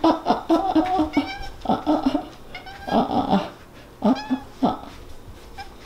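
House cat vocalizing in short calls while at play: a quick run of them at the start, then more about three and four seconds in, dying away near the end.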